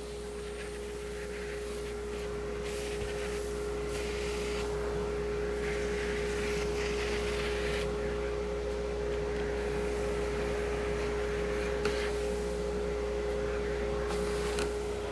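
CNC router spindle running with a steady whine as its bit cuts ring grooves into a board glued up from scrap wood strips. Over it, the hiss of a vacuum hose sucking up the sawdust swells and fades as the nozzle moves across the board.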